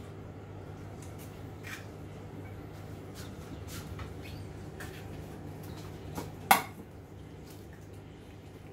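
Small clicks and knocks from kitchen work while separating eggs: eggshell and a metal bowl handled and a cupboard door opened. One sharp knock with a short ring about six and a half seconds in is the loudest sound. A steady low hum runs underneath.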